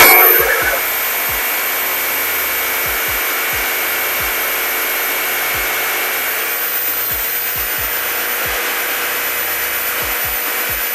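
Jigsaw cutting through plywood along a curved line, the blade rasping and the motor whining at a steady pitch. It starts abruptly at full speed and runs evenly.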